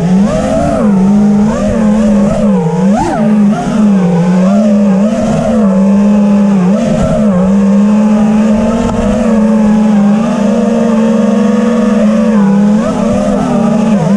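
FPV freestyle quadcopter's brushless motors and propellers buzzing in flight, the pitch swooping up and dipping sharply several times as the throttle is punched and chopped, with a rumble of air noise underneath.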